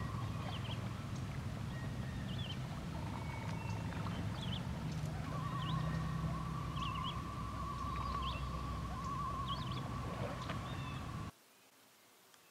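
Pond-side animal calls: a long, wavering trill held at one pitch that stops and starts, and short high bird chirps repeated about once a second and a half, over a low rumble. All of it cuts off suddenly near the end.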